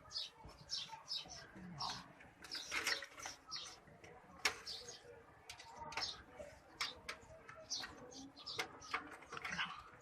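Light clicks and knocks of metal parts being handled as a power supply is fitted into a desktop PC case, with birds chirping in short repeated high notes throughout.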